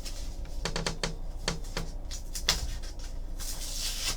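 Trading cards and their plastic holders being handled: a series of light clicks and taps, then a sliding rustle near the end.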